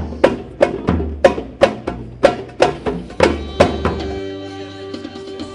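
Traditional-style music: a drum beating steadily about three times a second, then stopping about four seconds in, leaving held instrument notes.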